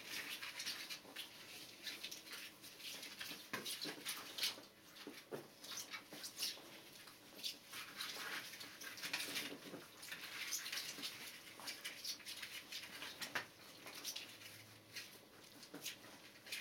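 Two-week-old Border Collie puppies making soft squeaks and whimpers, with scattered scratchy rustling as their paws scrabble on the bedding while they crawl and nurse.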